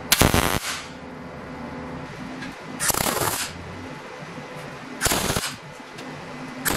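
MIG welder laying short stitch welds on a steel plate: three separate bursts of arc noise, each about half a second long, at the start, about three seconds in and about five seconds in, with a brief fourth right at the end. A steady low hum runs underneath between the welds.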